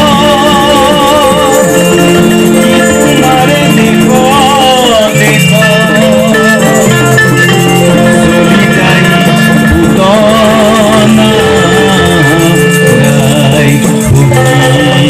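A man singing into a microphone with heavy vibrato, in phrases over held keyboard chords, with a mandolin playing along.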